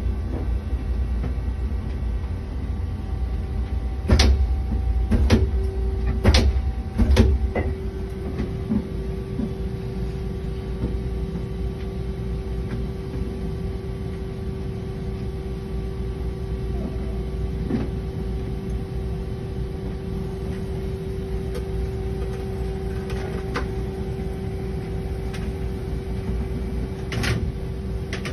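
Doosan Puma GT2100 CNC lathe running with a steady machine hum and a constant tone. A cluster of clunks comes about four to seven seconds in, and another near the end.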